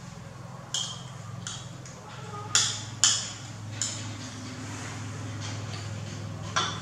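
A metal spoon clinking and scraping against a plate: about six sharp clinks, the loudest two close together about halfway through, over a steady low hum.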